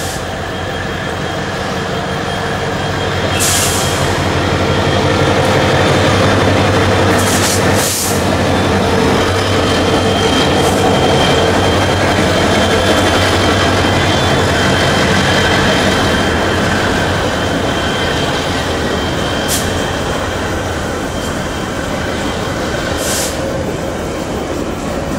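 Two CC 205 diesel-electric locomotives in double traction running past close by, their engine sound building over the first few seconds and then holding steady as the coal wagons roll behind. A few brief high-pitched wheel squeals cut through.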